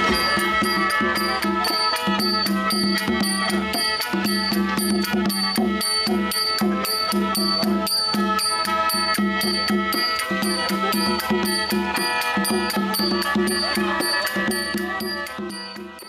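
Music with a steady, even beat over held tones, fading out near the end.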